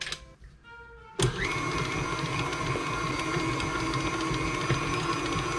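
KitchenAid stand mixer switched on about a second in: its motor spins up with a brief rising whine, then runs steadily as the wire whisk beats powdered-sugar icing.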